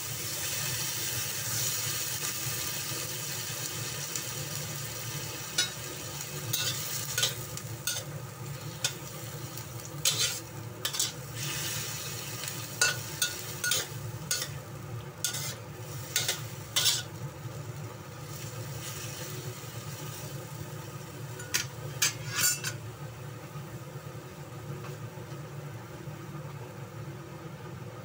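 Bottle gourd (opo squash) pieces sizzling in oil in a wok over a steady low hum. From about six seconds in until past twenty seconds, a spatula scrapes and clacks against the wok in bursts as the pieces are stirred.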